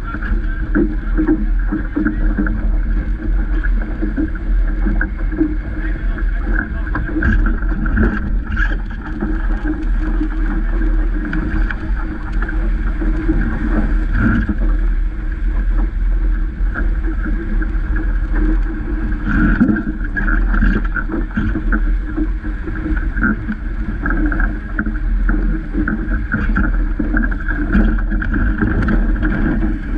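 Wind buffeting the microphone and water rushing and splashing past the hull of a Vaucluse Junior sailing dinghy moving fast in a gusty breeze, with occasional louder splashes of spray.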